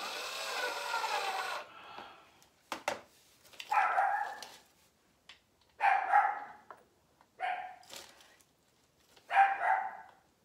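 A dog barks four times, in short single barks a second or two apart. Just before, a cordless drill runs for about a second and a half, and there are a couple of knocks.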